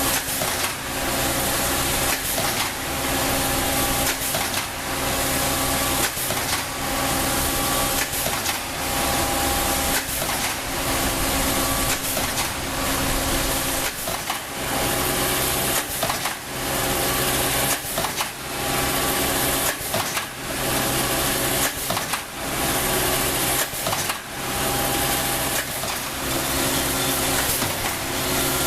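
Wire straightening and cutting machine running: a steady mechanical whirr with hum tones, broken by a short sharp change in the sound about every two seconds.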